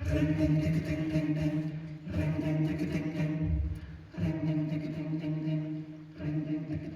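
Vocal group singing long held chords without words, in four phrases of about two seconds each.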